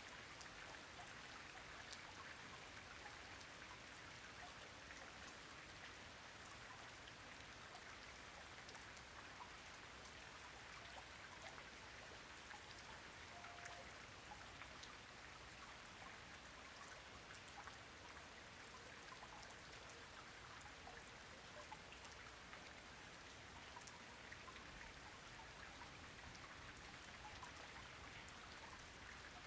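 Faint, steady rain, a soft even hiss dense with the small ticks of individual raindrops hitting the surface.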